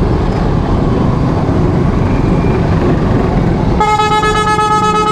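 Motorcycle riding along a road, its engine and wind noise a steady low rumble. Nearly four seconds in, a vehicle horn sounds one steady held note.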